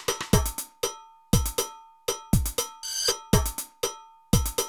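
Programmed drum-machine beat: a deep kick drum about once a second, with quick ticking hi-hat strokes between the kicks and a single snare hit about three seconds in. A steady ringing tone runs underneath.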